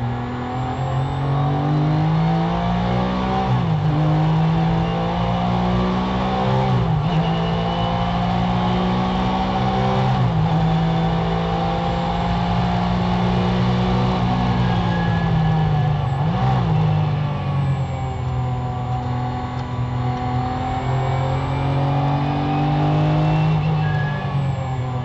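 Porsche GT3 race car's flat-six engine heard from inside the car at racing speed. It pulls hard through several quick upshifts in the first ten seconds, drops in pitch under braking with a short rev blip on a downshift, then climbs again and eases off near the end.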